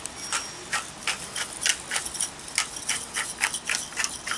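Salt and pepper being put onto a large raw flap steak: a run of short, crisp bursts, about two to three a second.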